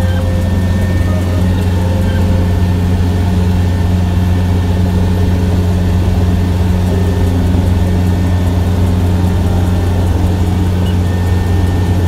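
Kubota combine harvester's diesel engine and cutting and threshing machinery running steadily under load while harvesting rice, heard from inside the cab as a loud, constant low drone.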